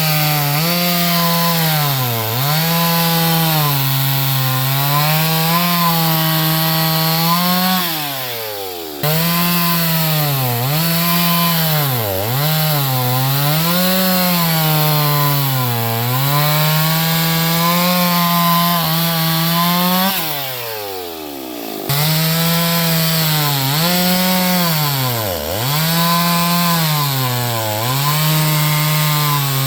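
Chainsaw cutting through pine wood, the engine note sagging and recovering over and over as the chain bites. Twice the revs fall away as the throttle is let off, then the full-speed cutting sound comes back abruptly.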